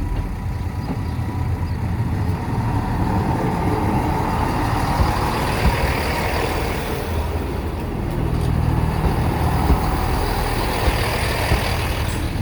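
A heavy vehicle's engine running with a steady low rumble, the noise swelling and easing over several seconds, with a few short ticks near the end.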